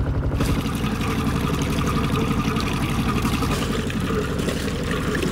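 A small sailboat's engine idles steadily at the dock with an even low pulse. The engine has just been repaired and sounds good.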